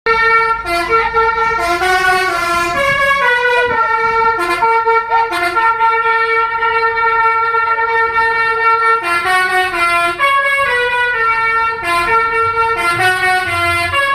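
Telolet basuri musical horn on a tour bus playing a tune: several loud horn tones sound together and step from note to note about every half second to a second, without a break.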